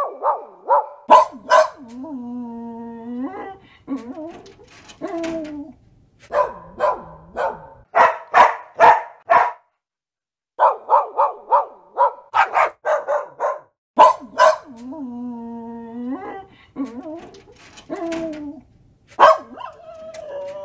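Dog barking in quick runs of short barks, with drawn-out whining calls between them. About halfway through, after a brief silence, the same run of barks and whines starts again.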